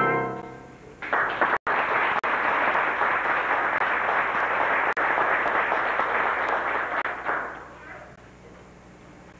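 Audience applauding, starting about a second in and dying away after about seven seconds.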